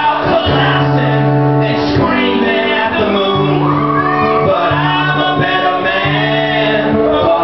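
Live band music with singing in a large hall, low held notes changing every second or so under the voices and instruments.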